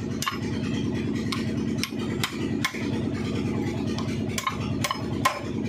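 Sharp metal-on-metal hammer strikes, about a dozen at an uneven pace, driving a bearing onto the counter shaft of a Mahindra 475 DI tractor gearbox. A steady low engine drone runs underneath.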